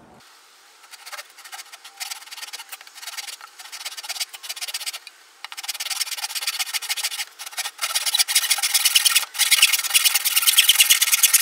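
Backsaw cutting through a small piece of wood in a quick series of short strokes with brief pauses: light strokes at first while the cut is started, then heavier, louder strokes from about halfway.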